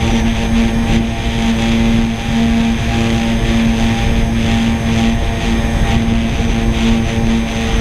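Fortis Titan tricopter's SunnySky 1400kv brushless motors spinning 9x4.5 propellers in steady flight, heard from the onboard camera: a steady, close propeller hum with several tones over a low rumble.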